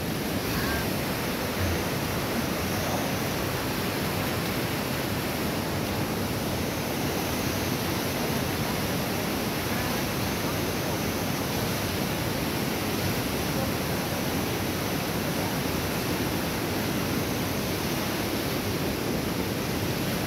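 Steady, unbroken rush of fast-flowing river water.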